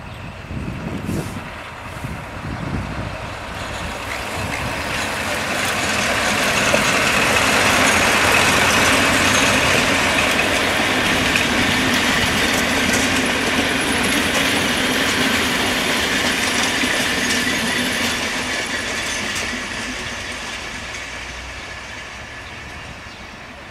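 A diesel locomotive hauling passenger coaches passes by: the engine and the wheels running on the rails grow louder, stay loud for about ten seconds as the train goes past, then fade away.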